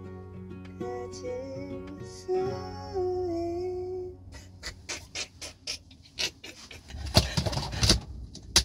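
Background music with a sung melody that stops about four seconds in. A string of short clicks and knocks follows, then a louder burst of rustling handling noise near the end.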